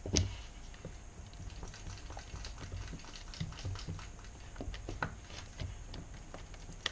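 Wooden stir stick scraping and clicking against the sides and bottom of a plastic mixing cup as liquid resin is stirred: an irregular run of small clicks and scrapes, with one louder click right at the start.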